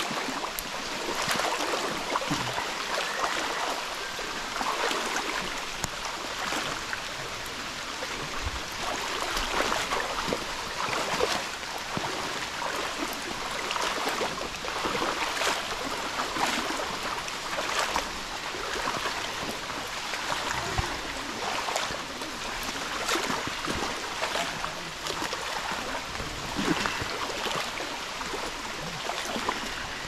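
Several people wading through shin-deep floodwater: steady sloshing with repeated splashes from their strides, roughly one a second.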